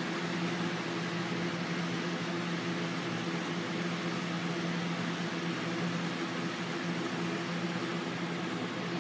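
Steady hum from a running fan-like household appliance, an unchanging low drone over an even hiss.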